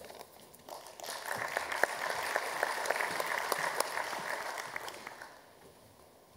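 Audience applauding a speaker's introduction, building up about a second in and dying away over the last second or so.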